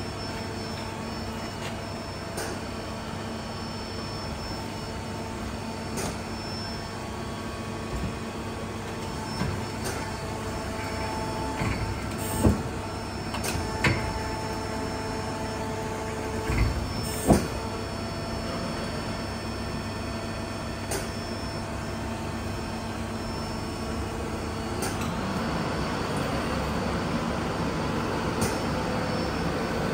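Mazak Quick Turn 30 CNC lathe switched on, with a steady machine hum. There are four clunks in the middle, and the hum grows louder and rougher near the end.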